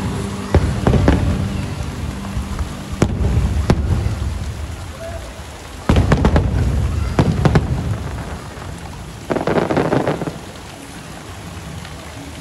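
Aerial fireworks bursting overhead: deep booms with a rolling rumble, and a run of sharp bangs about halfway through. About three quarters in there is a brief spell of dense crackling from crackling stars, and the sound then settles to a low rumble as the show dies down.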